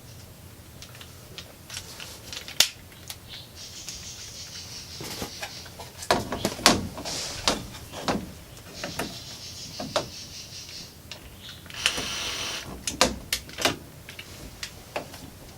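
Power drill pre-drilling screw holes in three short runs, with clicks and knocks from the drill and the hardware being handled between runs.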